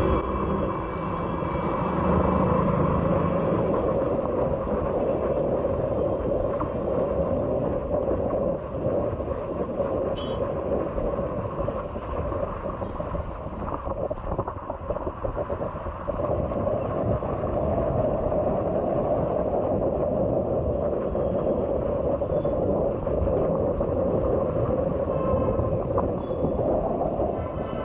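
Steady road and wind noise from a motorbike riding through heavy rain: an unbroken rumbling hiss of engine, tyres on the wet road and rain.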